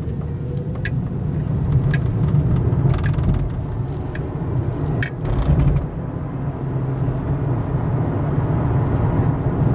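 Car engine and road noise heard from inside the cabin while driving: a steady low hum with a few faint, irregular clicks.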